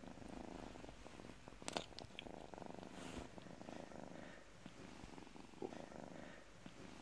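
A kitten purring softly while being stroked, a faint, even rumble, with a brief click about two seconds in.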